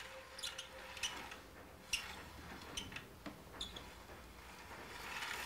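Faint, irregular clicks and ticks from a film projector being handled, its reel turned by hand.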